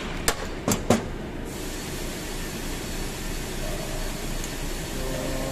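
Three sharp knocks within the first second, from parts of a removed starter motor being handled, over a steady background noise.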